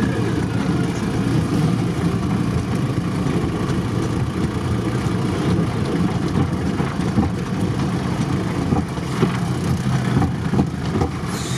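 UAZ's engine running steadily, heard from inside the cab.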